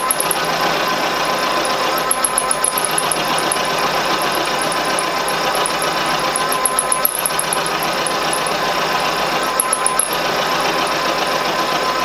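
Milling machine running with its end mill cutting into the end of a thin metal rod clamped in a vise, milling it to a rectangular section: a steady tone under a rough, continuous cutting noise.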